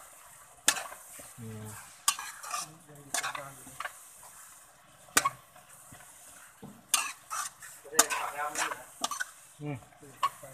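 Metal spatula scraping and clacking against a metal wok as minced chicken and offal are stirred and turned, in irregular strokes over a faint sizzle of frying.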